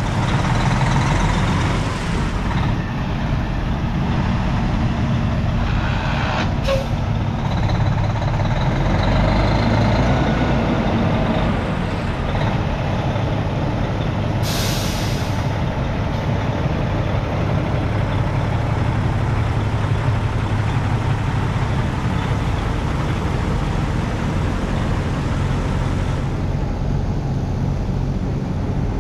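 Diesel engine of a 2004 Mack CL733 truck idling steadily, with a short burst of air hiss from the truck's air system about halfway through.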